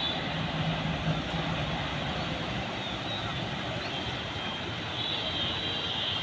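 Steady outdoor background noise, a continuous rumble and hiss with no distinct events, with faint high thin tones near the start and again near the end.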